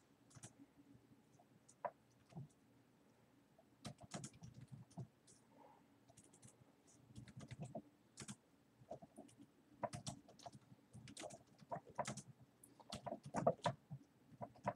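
Faint, irregular clicking of a computer keyboard being typed on, in short runs, busiest in the second half.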